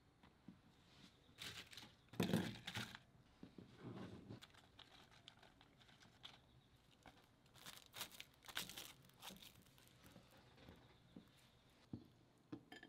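Quiet kitchen handling sounds: short bursts of rustling and crinkling as bok choy and shimeji mushrooms are handled and dropped into a glass bowl. The loudest burst comes about two seconds in and another group around eight seconds, with a few light knocks near the end.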